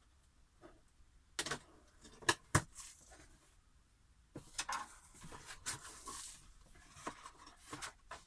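Cardboard box being unboxed: packing tape slit open with a cutter and a couple of sharp clicks, then cardboard flaps pulled open and paper rustling as the packing and manual are lifted out.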